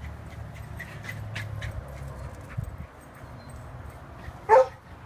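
A dog gives one short, loud bark near the end, over a low rumble and faint ticks.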